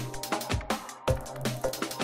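Electronic background music with a steady drum beat and a low bass line.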